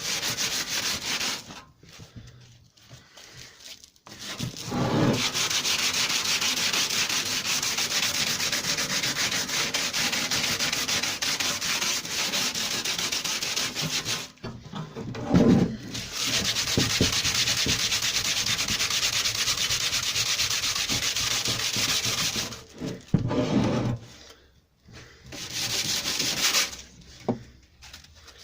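Sanding hardened metal filler on a steel lawnmower deck with 80-grit sandpaper: a steady scratching in three long stretches with short pauses between.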